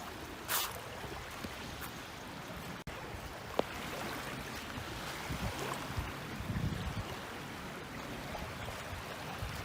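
Sea water splashing and lapping, with some low wind rumble on the microphone about five to seven seconds in and a single sharp click a few seconds in.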